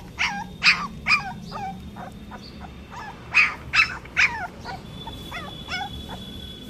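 Young American bully puppy giving short, high-pitched whimpering cries, about a dozen, in quick runs: a burst near the start, another around three to four seconds in, then fainter ones.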